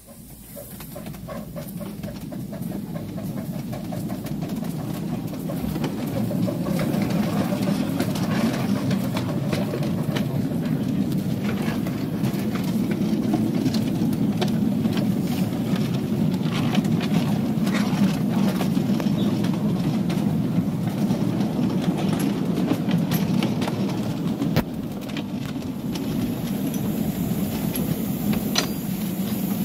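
Ride-on miniature railway train pulling away and running along the track. Its wheels make a steady rumble on the rails, building over the first few seconds, with frequent clicks.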